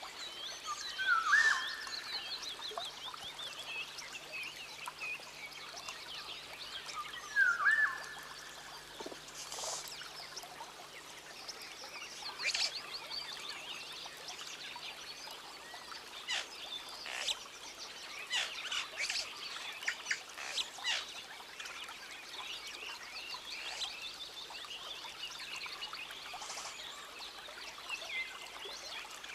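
Rainforest wildlife chorus: a steady wash of high chirping calls, with two loud falling calls about six seconds apart near the start, and many short sharp chirps through the middle.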